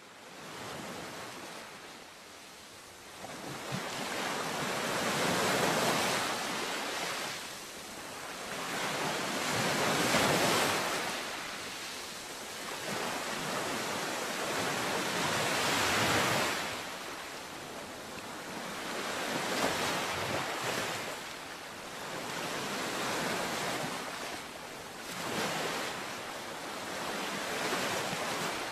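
Ocean waves washing in and drawing back, a rushing noise that swells and fades every few seconds.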